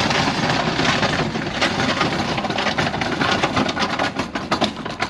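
Small wheels of a hand truck loaded with a large cardboard box rolling over rough asphalt: a steady rattling rumble with many small clicks and knocks.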